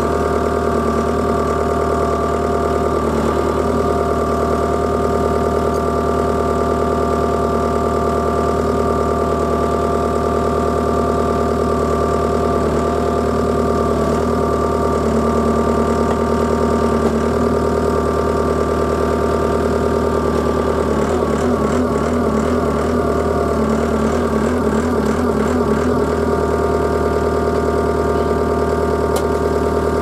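Takeuchi tracked skid steer's diesel engine running at a steady idle close by. A few seconds past the middle its note wavers and roughens for a while, then settles again.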